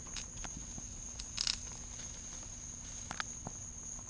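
Small wood fire in an ultralight camp stove crackling under a pot boiling hard, with a few sharp pops scattered through, over a steady high-pitched cricket drone.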